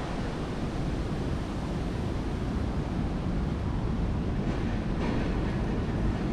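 Steady wet-weather outdoor ambience: an even wash of rain noise with wind buffeting the microphone, heavy in low rumble.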